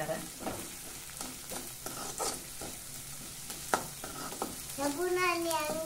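Steel spoon stirring and scraping a tempering of peanuts, onion and green chillies that is sizzling in oil in an aluminium kadai, with scattered sharp clicks of the spoon against the pan.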